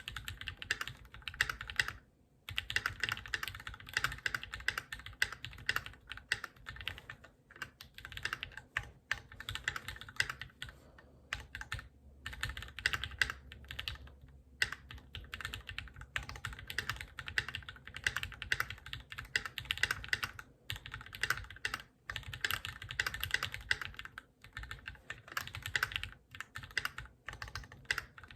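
Typing on a Keychron Q2 aluminium-cased mechanical keyboard fitted with lubed Gateron Milky Yellow linear switches: a fast, continuous run of keystrokes with a few brief pauses.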